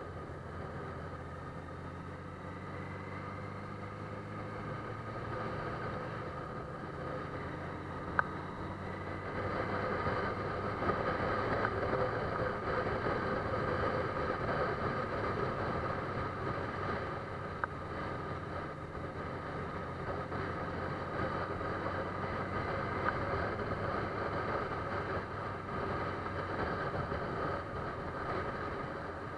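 A vehicle engine running steadily, with two short clicks, about eight and eighteen seconds in.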